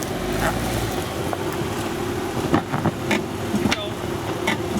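Jeep Wrangler's engine running at low revs while it creeps backward over rocks, with a few short knocks and wind on the microphone.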